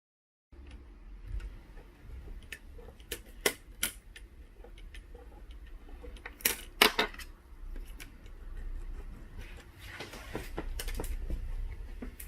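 Sharp clicks and taps of small hard parts and tools being handled during a laptop screen repair, loudest in a quick cluster mid-way, then a stretch of rubbing about ten seconds in, over a low hum. It begins after a brief silence.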